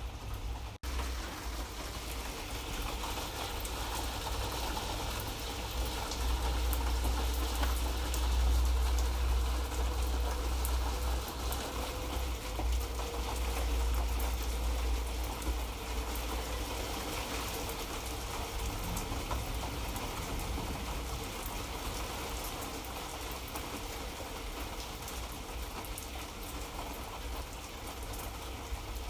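Light rain falling steadily, a continuous hiss dotted with many small drop ticks over a low rumble. The sound cuts out for an instant just under a second in.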